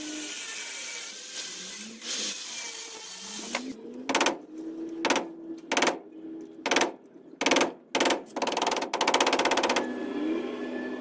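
A power tool run in about six short bursts, then a rapid buzzing for a second or so, settling into a steady hum near the end.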